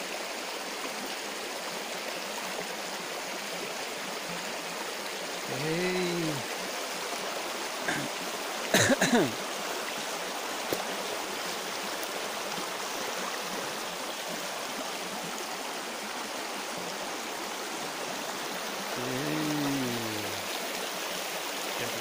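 Shallow mountain river rushing and gurgling over stones, a steady flowing noise. A short vocal sound comes about six seconds in and again near the end, and a brief sharp bump about nine seconds in is the loudest moment.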